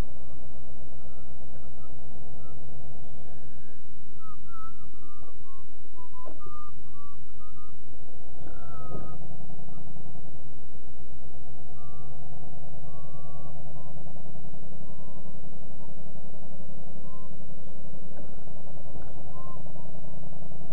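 Ford F-250 pickup's engine running at low speed, heard from inside the cab, its note rising about nine seconds in. Thin, wavering high tones come and go above the engine drone.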